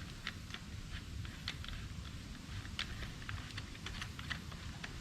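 Light, irregular plastic clicks and ticks as the pressure washer's spray wand is fitted and screwed into the trigger gun, over a low steady rumble.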